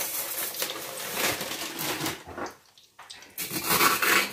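Coated potato pieces sizzling in hot oil in a large frying pan, a dense steady hiss. It drops out for about a second a little past halfway, then comes back.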